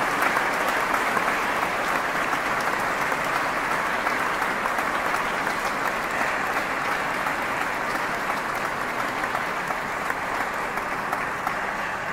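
Audience applauding, a steady clatter of many hands that slowly dies away near the end.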